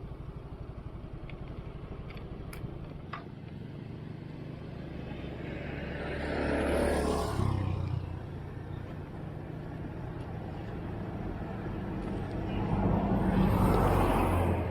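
Road traffic with a steady low engine hum and two vehicles passing by, each swelling up and fading away, one about halfway through and one near the end.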